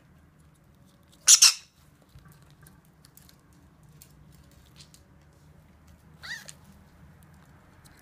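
A parrot gives a loud, harsh double squawk about a second in, then a shorter, quieter call with a rising pitch a little after six seconds.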